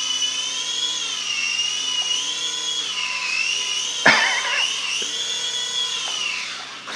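Air Hogs Axis 300X toy remote-control helicopter's small electric motors and rotors whining steadily, the pitch rising and falling as the throttle is worked. There is one brief sharp sound about four seconds in, and the whine winds down near the end.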